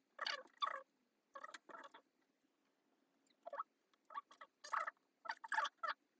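Irregular short crinkling and scratching handling noises, about a dozen quick bursts with brief pauses between, as hands work a keyboard cable and tape into place.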